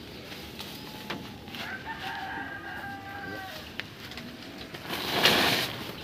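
A rooster crowing once, a single held call of about a second and a half. Near the end a short, loud rush of noise is the loudest sound.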